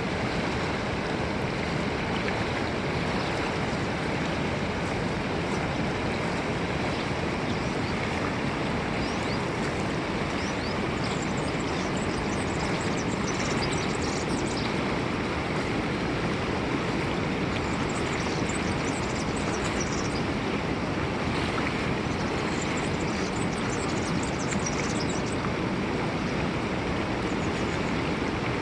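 River water rushing steadily over its bed, a constant even roar. Faint high chirps come through twice in the middle.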